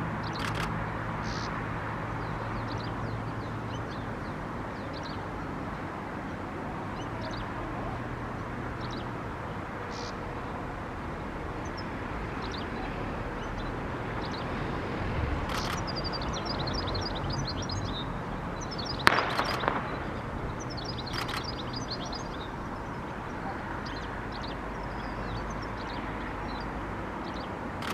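Small birds chirping in short high calls, with a quick run of chirps about two-thirds through, over a steady outdoor background noise and a low hum. A few sharp knocks stand out, the loudest about two-thirds through.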